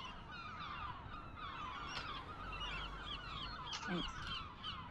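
A flock of birds calling: many short, overlapping calls in a dense, continuous chorus, with one lower, falling call about four seconds in.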